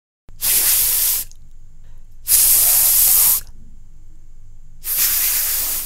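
A voice sounding the voiceless 'th' consonant /θ/, as in 'three', three times. Each is a breathy hiss held for about a second, with short pauses between them.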